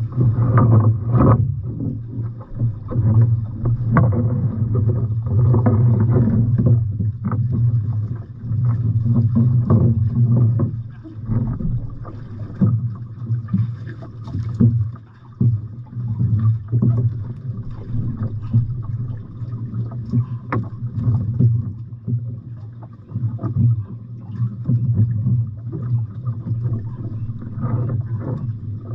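Boat engine running steadily with a low drone, with scattered knocks and water and wind noise over it.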